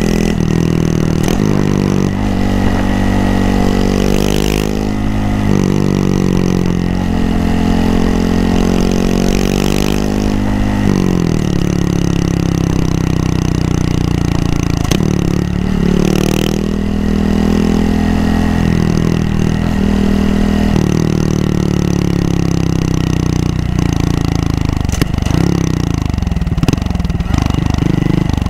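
Honda Monkey 125's single-cylinder four-stroke engine pulling through the gears on the move: the pitch climbs under throttle and drops back at each upshift, several times, then falls away as the bike slows near the end. Wind noise rushes over the microphone throughout.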